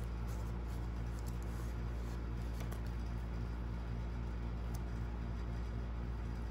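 Steady low hum of a room air conditioner running, with a few faint light clicks from photocards being handled.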